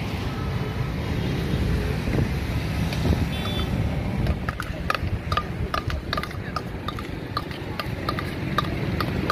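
Steel spoon clinking against a steel bowl, about three times a second in the second half, as chopped sweet potato is tossed with spices. Steady road-traffic rumble underneath.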